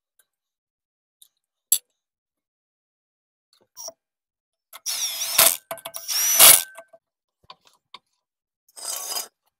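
A ratcheting tool working in three short bursts, the first two loudest, with a whirring that slides in pitch and a few light clicks before them: lug nuts being run on as the rear wheel goes back on.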